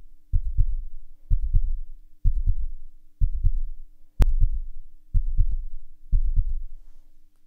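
Heartbeat sound effect: a low lub-dub double beat about once a second, seven times, over a faint steady tone, with a sharp click about four seconds in.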